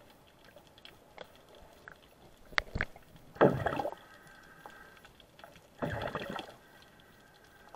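Underwater water noise picked up by an action camera in its waterproof housing: two brief gurgling swishes of water, about two and a half seconds apart, a little past three seconds in and near six seconds. Two sharp clicks come just before the first.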